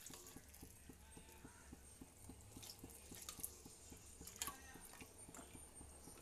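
Near silence over a low steady hum, with a few faint taps and clicks of a plastic strainer and steel spoon against a steel pot as jaggery syrup is strained in; the two clearest clicks come about halfway through.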